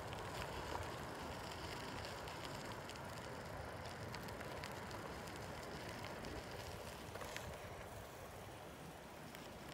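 Bicycle rolling along a dirt and gravel path: a steady rush of tyre noise with a few light clicks and rattles.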